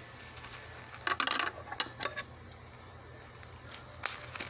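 Small metal jewelry pieces (pins and brooches) clinking against each other as they are handled, in a few short bursts of light clicks.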